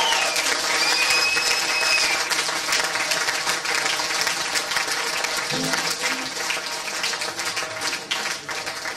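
Audience applauding and cheering at the end of a song, with a whistle in the first couple of seconds; the clapping dies down toward the end.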